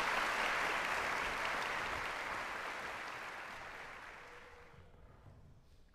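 Concert audience applauding, the clapping fading away over about five seconds.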